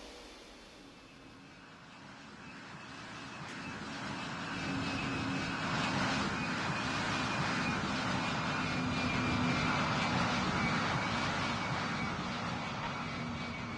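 Airplane engines passing: a steady engine noise with a held whine swells up over several seconds, stays loud through the middle, then fades.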